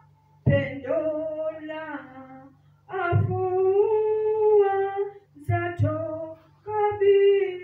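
A woman singing slowly into a microphone, long held notes in short phrases with brief breaks between them. A steady low hum runs underneath.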